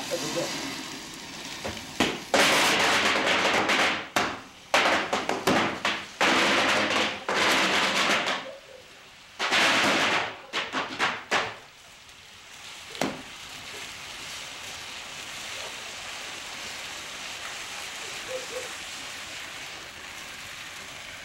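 Stage pyrotechnics going off inside a prop machine: loud surges of hissing, crackling sparks, several in a row with short gaps, for about ten seconds. After that the sparks settle to a quieter, steady hiss and crackle as they burn on.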